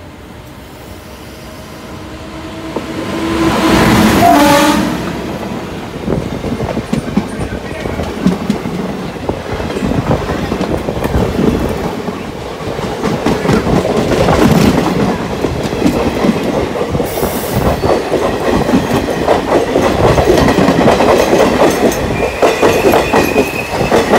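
An oncoming train's locomotive sounds its horn as it closes in and passes, the horn swelling about four seconds in and dropping slightly in pitch as it goes by. Its coaches then rush past on the next track with a dense, rapid clatter of wheels over rail joints, heard from the doorway of a moving train.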